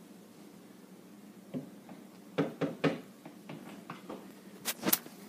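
A run of soft, irregular knocks and taps, starting about a second and a half in, with a quick pair near the end.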